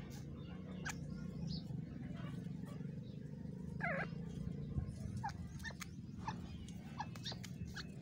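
Francolin (teetar) giving soft, short calls: one falling call near the middle, then a few brief chirps toward the end, over a steady low hum and faint rustling clicks.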